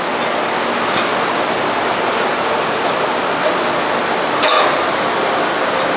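Steady rushing background noise, with a brief click of the steel bandsaw blade against its guides about four and a half seconds in, as the blade is fed through the blade guides.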